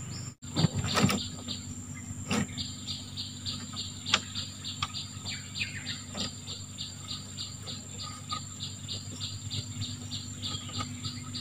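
Forest insects chirping in an even rhythm of about four chirps a second over a steady high-pitched insect drone, with a few sharp knocks in the first seconds.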